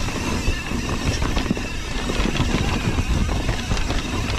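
Transition Sentinel mountain bike ridden down a dirt singletrack: tyres rolling over dirt and the chain and frame rattling, with many small clicks and knocks over a steady rush of wind on the microphone.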